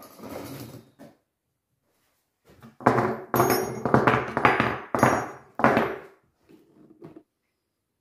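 Forged angle-iron hooks picked up and set down on a workbench, giving a run of metal clanks with a high ringing edge from about three to six seconds in, after a softer handling sound near the start.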